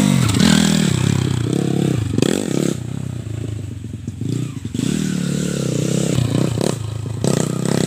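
Dirt bike engine revving up and down, its pitch rising and falling with the throttle, easing off for a couple of seconds midway before picking up again.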